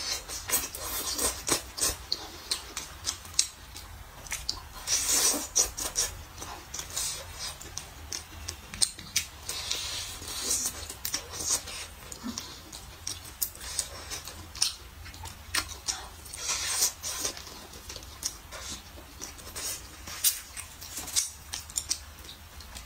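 Close-up eating sounds of a person biting and chewing a braised chicken drumstick: irregular wet smacks and mouth clicks, several a second.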